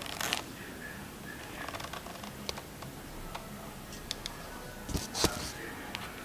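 Small clicks and knocks from handling a Sony camcorder and its buttons, with a louder click just after the start and two sharper knocks about five seconds in.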